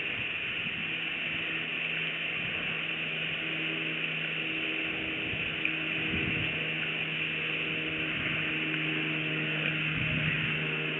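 A distant motor's steady low drone sets in about a second in and holds one pitch, over a constant outdoor hiss.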